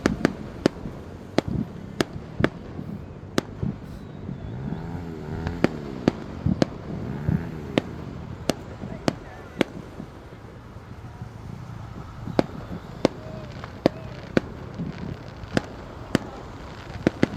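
Fireworks going off: a string of about twenty sharp bangs at irregular intervals, roughly one a second, with a short lull in the middle.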